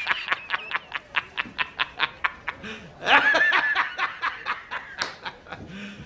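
A man laughing hard in quick, even ha-ha bursts, about six a second. About three seconds in, a longer drawn-out laugh breaks the run, then the quick bursts resume.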